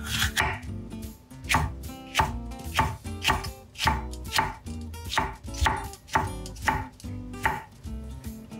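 Kitchen knife slicing green peppers into thin strips on an end-grain wooden cutting board: a regular series of knife strokes knocking on the board, about two a second, stopping near the end.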